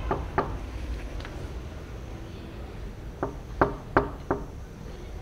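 Knuckles knocking on a wooden door: two knocks near the start, then four more in quick succession about three seconds in.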